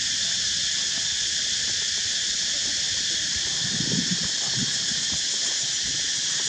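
Steady, unbroken high-pitched drone of an insect chorus, with a few soft low thuds about four seconds in.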